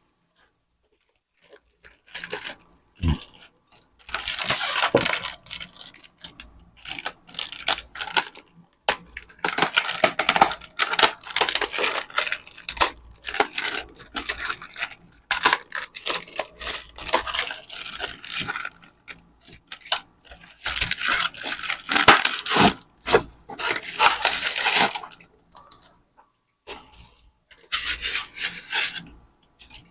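Bubble wrap and plastic packaging rustling and crinkling as it is unwrapped by hand, in irregular bursts with short pauses and an occasional knock.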